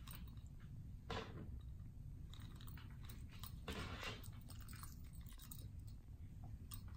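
A kitten chewing and biting a hollow plastic ball toy: soft, irregular clicks and scrapes, with one longer, louder scrape about four seconds in.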